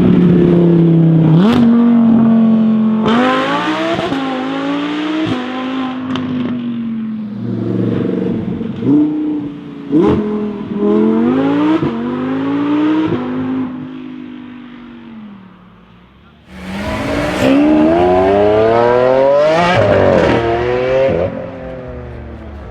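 Audi R8 V10 Performance's 5.2-litre V10 through a Capristo straight-pipe exhaust, accelerating hard: repeated climbs in revs broken by upshifts, several marked by sharp cracks. It fades away about two-thirds of the way through, then a second loud full-throttle pull rises in pitch near the end.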